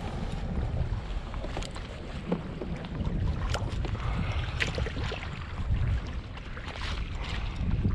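Wind buffeting the microphone over water lapping at a kayak's hull, with scattered light clicks and knocks as the fishing rod, reel and pliers are handled.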